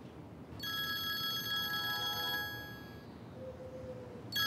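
Mobile phone ringing with a trilling, bell-like electronic ringtone. One ring starts about half a second in and lasts nearly two seconds, and the next ring begins near the end.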